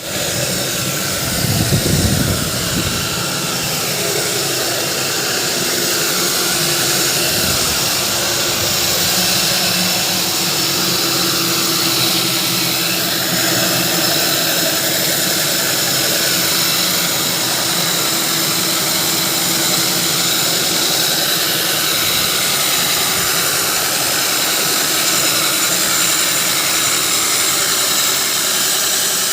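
Core cutting machine running steadily as it drills a hole for plumbing pipes, a continuous motor whine with grinding noise, briefly louder and deeper about two seconds in.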